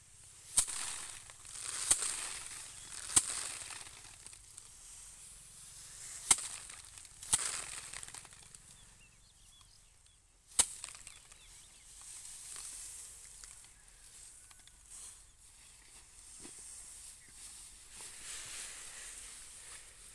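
Bundles of harvested paddy threshed by hand, swung overhead and beaten down to knock the grain loose: six sharp whacks in the first ten or so seconds, each trailed by a rustle of straw. Softer rustling of straw follows.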